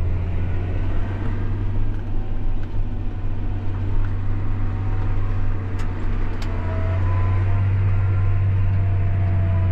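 John Deere 8300 tractor's six-cylinder diesel engine running steadily under load while pulling a tillage implement, a deep constant drone that grows a little louder about seven seconds in.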